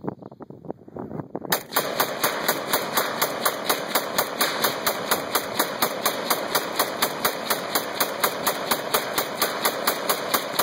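AK-47 rifle (7.62×39 mm) fired in a steady rapid string, about four shots a second, starting about a second and a half in and stopping near the end: a 40-round magazine emptied.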